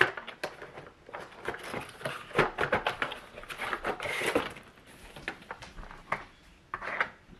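Irregular clicks, knocks and clatter of a dog treat puzzle toy being handled and set up, its pieces and compartments knocking together.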